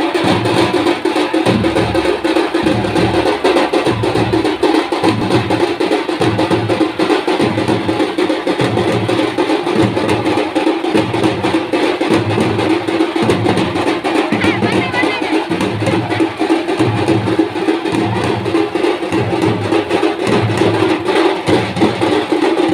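A troupe of dappu frame drums and a barrel drum beaten with sticks in a loud, steady, fast rhythm, with a deep beat repeating a little more than once a second.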